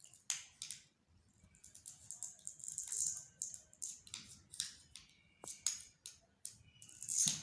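Plastic toy fruit being cut apart with a toy knife: a scatter of short, light clicks, taps and crackles at irregular intervals.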